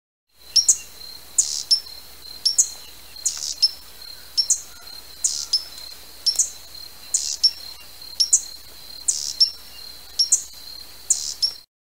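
Hummingbird giving sharp, high chip notes that fall in pitch, mostly in quick pairs about once a second, over a thin steady high whine.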